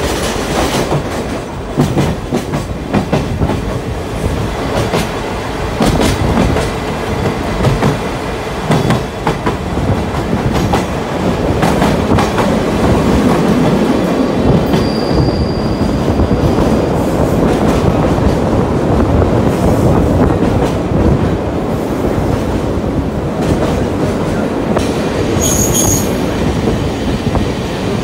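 Open-sided trolley car on TR209 bogies running on the rails, a steady rumble with the wheels clacking over the rail joints, echoing inside a tunnel. A brief high wheel squeal comes about halfway through, and a shorter, sharper squeal a couple of seconds before the end.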